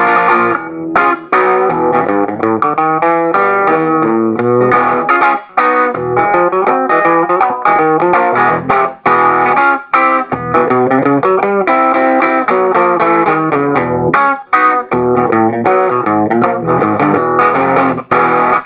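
Electric guitar playing a boogie-blues tune, with quickly picked notes and chord stabs that change rapidly.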